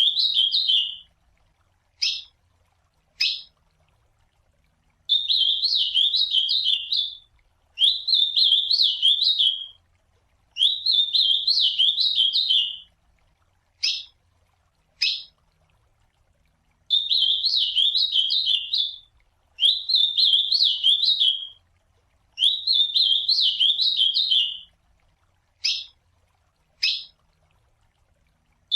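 Ultramarine grosbeak (azulão) singing: seven warbled song phrases of about two seconds each, pitched high and rapidly rising and falling, with short single call notes in the pauses between them.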